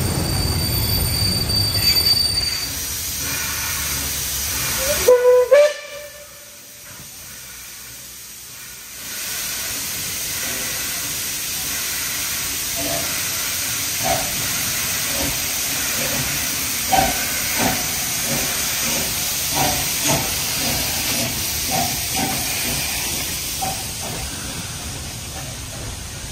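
MÁV class 424 steam locomotive (424 247 'Bivaly') hissing steam, with one short whistle blast about five seconds in. After it comes a steady hiss with occasional short knocks.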